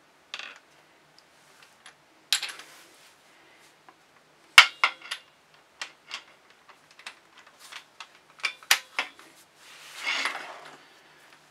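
Steel hand tools clinking and clacking together on a tile floor as a digital torque adapter, sockets and a click-type torque wrench are fitted together: a run of separate sharp metallic clicks and knocks, the loudest a single hard clack about halfway through, then a short scraping rasp near the end.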